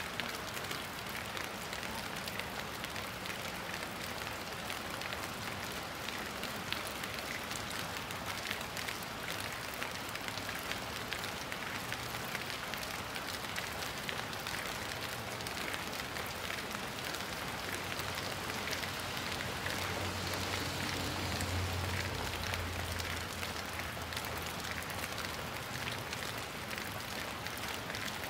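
Steady rushing noise of a fast-flowing river in flood. A low hum swells and fades about two-thirds of the way through.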